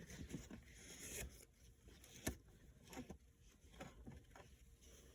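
Faint handling of a small plastic switch: light rubbing and a few soft clicks, the sharpest about two seconds in.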